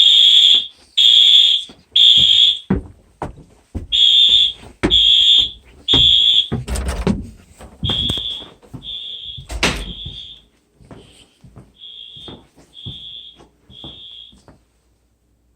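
Wheelock AS horn-strobe sounding a loud, high-pitched electronic horn in the three-pulse temporal evacuation pattern: three half-second beeps a second apart, then a pause, over and over. The beeps grow quieter about halfway through, and a few knocks fall between them.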